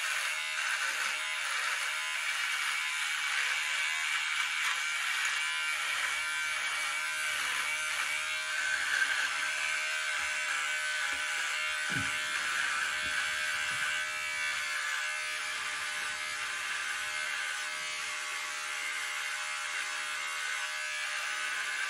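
Electric hair trimmer buzzing steadily as it cuts facial stubble, trimming overgrown beard growth down before a razor shave.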